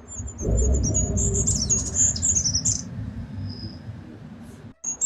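Goldcrest singing: a run of very thin, high-pitched, quickly repeated notes that rise into a short flourish, over a low rumble. The sound cuts off briefly near the end, then a few more high notes follow.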